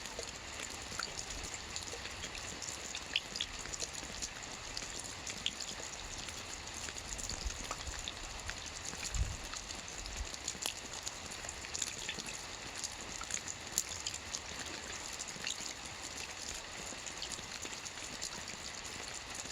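Steady rain falling: an even hiss with scattered sharp ticks of single drops striking a surface, and one brief low thud about nine seconds in.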